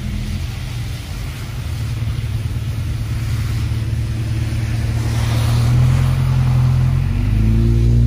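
Car driving, with a steady low engine hum and road noise. It grows louder in the second half, and the engine note rises near the end as the car speeds up.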